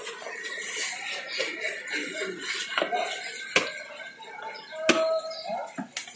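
Jhal muri (spiced puffed rice) being shaken and stirred with a spoon in a plastic mug, the spoon scraping and knocking against the sides, with scattered sharp clicks.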